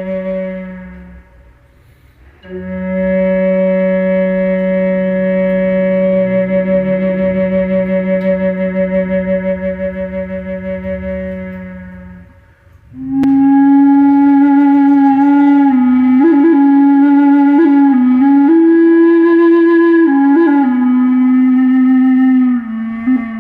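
Slow meditation music of long held notes: a steady low note that fades out about twelve seconds in, then a higher note that slides between a few pitches.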